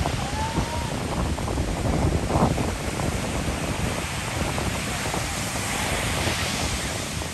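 Ocean surf washing and breaking on the beach, a steady rushing noise that swells briefly about two and a half seconds in, with wind buffeting the microphone.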